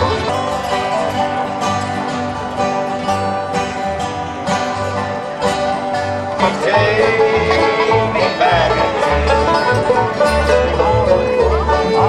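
Bluegrass band music with banjo picking and acoustic guitar over a steady bass pulse. About six and a half seconds in, a sustained higher melody line joins and the band gets louder.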